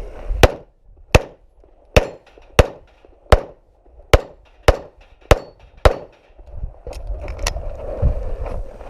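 Pistol shots fired at a steady, unhurried pace during a competition stage, about one every 0.6 to 0.8 seconds for nine shots, then a pause of over a second and one more shot.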